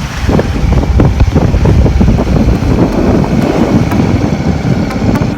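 Wind buffeting the microphone aboard a sailboat motoring through rough water at a harbour entrance, a loud gusting rumble over the rush of the sea.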